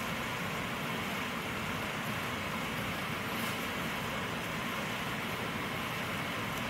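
Steady outdoor background noise: a constant even hiss with a low rumble beneath it, unchanging throughout, with no distinct events.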